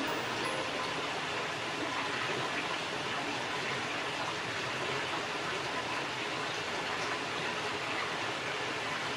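Hot-spring water running steadily into an open-air stone bath: an even, unbroken rush of water.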